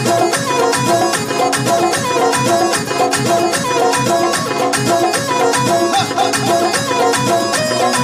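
Tabla drums playing a steady rhythm under a melody from a Korg electronic keyboard, played live.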